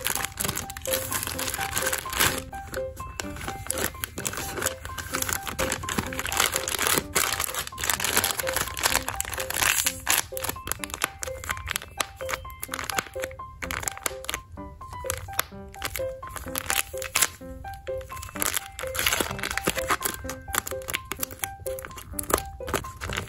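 Crinkling of a clear plastic bag packed with cotton pads and of a taped paper squishy as they are handled and squeezed, in many short irregular crackles. Background music with short repeated notes runs underneath.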